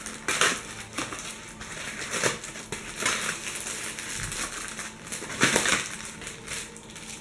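Stocking packaging being opened and handled: paper and cardboard rustling and crinkling in short bursts, loudest about half a second in and again about five and a half seconds in.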